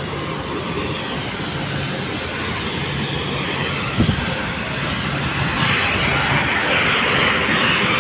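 Road traffic noise: a steady rumble of vehicles with a low engine hum, growing louder and hissier in the second half, with one sharp knock about halfway through.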